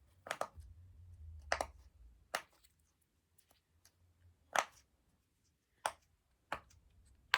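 Silicone pop-it fidget toy (a rainbow unicorn poppet) having its bubbles pressed through with a finger, giving about seven sharp, separate pops at irregular intervals of roughly a second.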